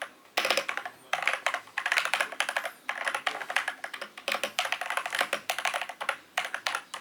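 Attack Shark K75 mechanical keyboard being typed on rapidly in bursts of dense key clicks with short pauses between them, its switches thought by the reviewer to be brown switches.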